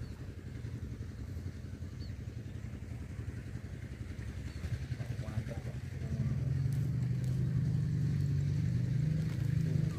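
A motor engine running steadily, a low drone that grows louder about six seconds in.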